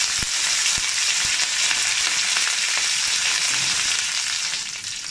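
Fresh curry leaves sizzling with mustard seeds, urad dal and a dried red chilli in hot sesame oil in a stainless steel kadai: a steady hiss with scattered crackling pops, the tempering (tadka) stage of the dish.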